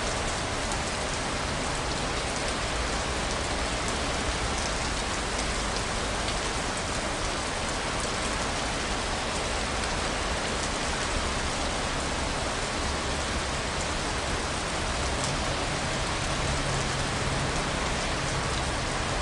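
Steady rain falling on a hard surface, a dense even hiss with scattered drops pattering.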